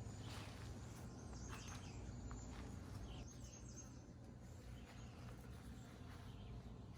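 Faint outdoor ambience: a steady low background rumble with a few short, faint high bird chirps in the first half.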